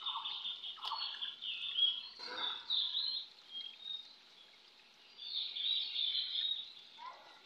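Birds chirping: short, repeated high calls that go quiet for a moment, then come thick again about five to six and a half seconds in.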